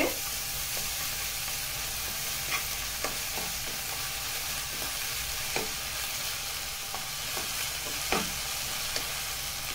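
Chopped onions and ginger-garlic paste sizzling steadily in hot oil in a nonstick pan while a wooden spatula stirs them. The spatula scrapes and taps the pan now and then.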